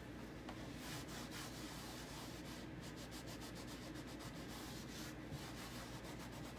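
Cloth rubbing across a chalkboard surface in repeated faint wiping strokes, erasing chalk.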